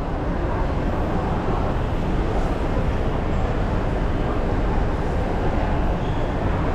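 Escalator running steadily under a rider: an even, low rumble of the moving steps and drive.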